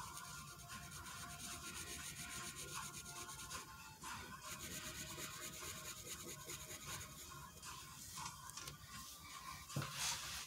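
Sharpie fine-point marker scratching back and forth on paper in quick repeated strokes as it fills in a solid black area, with a short knock near the end.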